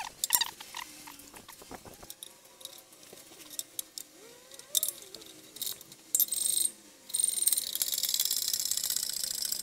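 Metal tools clinking on car suspension parts, then a few seconds of fast, steady ratcheting near the end as a fastener is turned.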